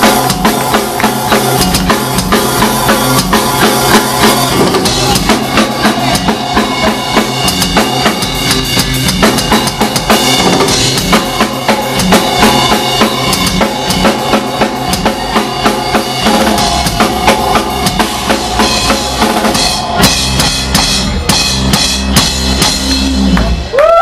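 Live electric bass solo played loud with a drum kit, rapid drum hits driving under the bass notes. The playing stops abruptly near the end.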